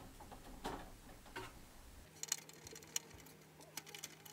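Faint, scattered clicks and taps of a screwdriver and small metal parts inside an overhead projector's housing, as the cable's strain relief is worked loose. About two seconds in, a faint steady low hum starts.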